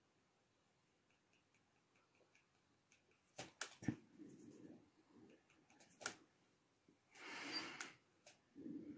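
Near silence: room tone with a few faint clicks and taps, and a short hiss about seven seconds in.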